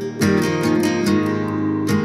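Intro music played on strummed acoustic guitar.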